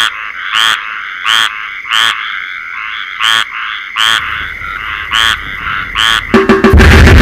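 A frog calling: a short pulsed croak repeated about every two-thirds of a second, about ten times. Near the end a loud, distorted noise wall cuts in abruptly.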